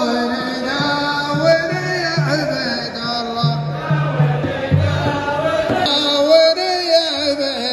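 Arabic singing: a voice carries a winding melody with long held, wavering notes over a low held accompaniment.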